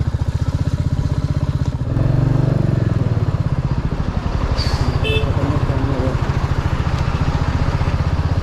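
Motorcycle engine running steadily at low speed, with a louder low swell about two seconds in and a brief high-pitched sound around five seconds in.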